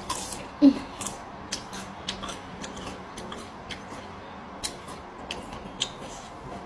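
Close-up mouth sounds of someone eating raw petai beans and fresh vegetables: an irregular string of short, crisp crunches and lip smacks, with one louder short sound just under a second in.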